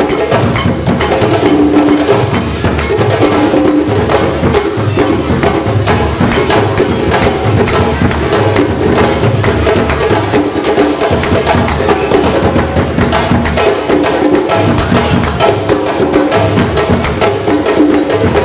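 A West African drum ensemble playing a fast, unbroken rhythm: two djembes played with bare hands over a tall dunun-style bass drum struck with sticks.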